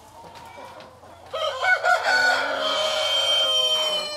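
Rooster crowing: a few short broken notes about a second in, then one long drawn-out note that falls slightly in pitch and stops near the end.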